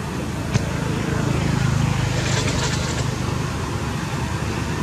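Steady low rumble of a running motor vehicle engine, with one sharp click about half a second in and a short scratchy rustle around two seconds in.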